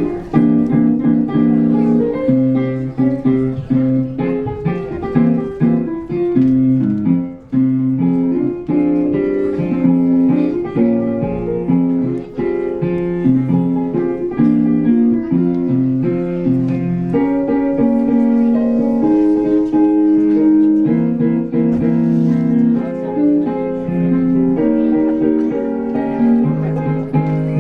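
Instrumental music led by piano, a melody of held notes moving over chords.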